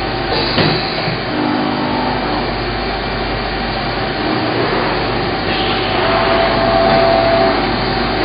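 Steady, loud machinery noise, an even mechanical hum with a faint steady tone rising out of it briefly near the end.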